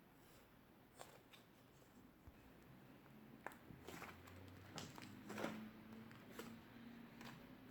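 Faint soft clicks and squishes of clay slime being pressed and stretched by hand, sparse at first and busier from about halfway through.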